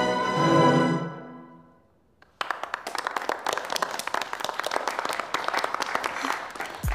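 Music ends on a held chord that fades out about two seconds in. After a short pause, a small group breaks into steady clapping.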